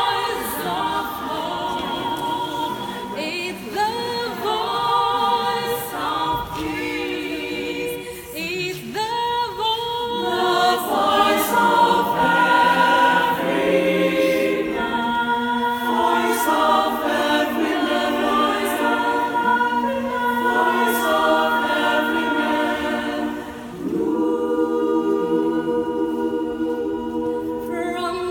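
Mixed choir of men's and women's voices singing a cappella in sustained harmony, the chords moving every second or so. The voices break off briefly near the end, then come back in together.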